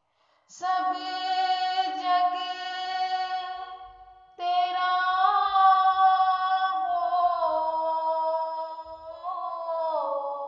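A woman's solo voice singing an Urdu nazm, unaccompanied, in two long drawn-out phrases: the first breaks off about four seconds in, and the second bends up and down in pitch before sliding lower near the end.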